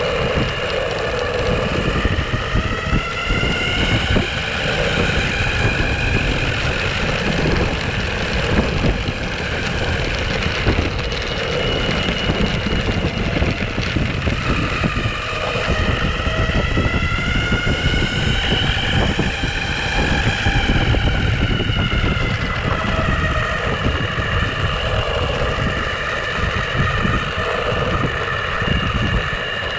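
Onsra Black Carve electric skateboard's belt-drive motors whining while riding, the pitch climbing as the board speeds up and sinking as it slows, twice over. Under it runs a steady low rumble.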